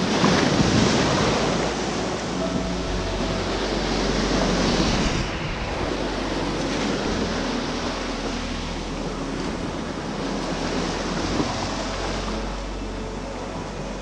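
Small sea waves breaking against rocks and washing up over a shingle beach. The splash is loudest in the first second.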